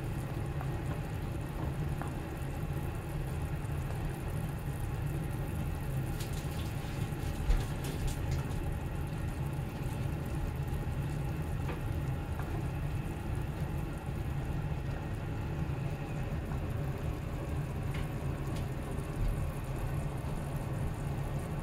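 Beef bubbling and sizzling in a sweet soy-based tare sauce in a small nonstick pan over a steady low rumble, with one sharp knock about seven and a half seconds in.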